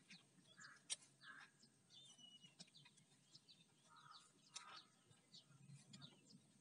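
Near silence with faint bird chirps in the background and a single sharp click about a second in.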